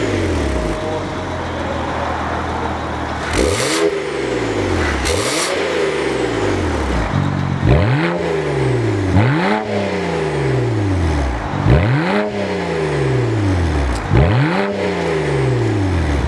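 BMW 335i's turbocharged straight-six through a PICO variable-valve exhaust, free-revving in short blips about seven times, each rev climbing and dropping back within a second or so. The blips come quicker in the second half, with the exhaust valves open.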